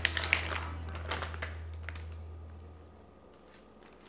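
Plastic bags rustling and crinkling with a few sharp clicks and taps as raw chicken wings are dropped into a zip-top bag of flour. Low background music fades out about three seconds in.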